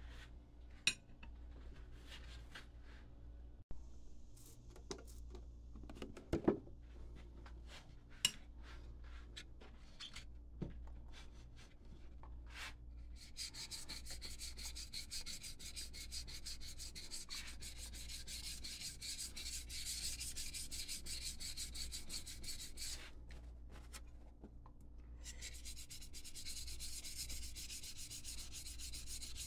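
Wood being sanded by hand. There are scattered clicks and knocks for the first dozen seconds, then steady, scratchy rubbing from about thirteen seconds in. The rubbing stops briefly a little after twenty-three seconds and starts again.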